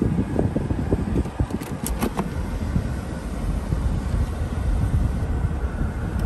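Low, uneven rumble inside a Mercedes-Benz CL55 AMG with its sunroof open, and a few light clicks about two seconds in.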